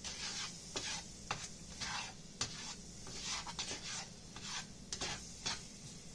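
Spatula scraping and stirring scrambled eggs in a frying pan in a dozen or so short, irregular strokes, over a light sizzle.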